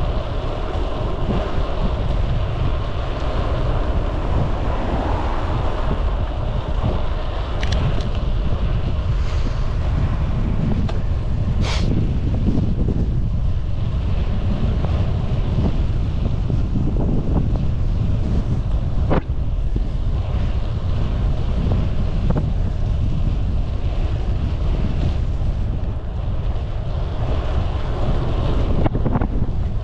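Wind buffeting the microphone of a moving bicycle in gusty weather, a steady low rumble. A few sharp clicks stand out, about 8, 12 and 19 seconds in.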